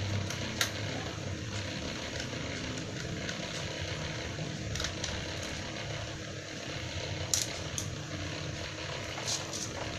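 About half a dozen light, scattered clicks as a screwdriver and the plastic bottom case of a laptop are handled while the screws are taken out, over a steady background noise.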